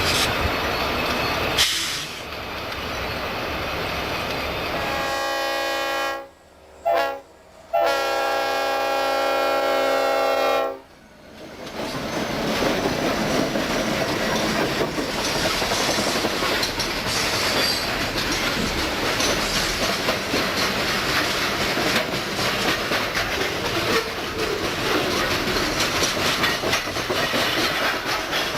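Diesel freight locomotive's air horn sounding a chord in three blasts, the last one long, followed by the steady clickety-clack and rumble of the freight train rolling past.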